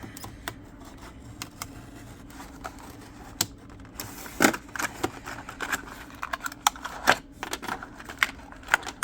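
Plastic blister of a diecast car's card package being cracked open by hand: irregular crackling and sharp clicks, starting about three seconds in and loudest about four and a half seconds in, over a faint steady low hum.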